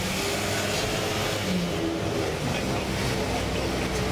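A taxi's engine and tyre noise heard from on board while driving through town streets: a steady rumble and road hiss with no sudden events.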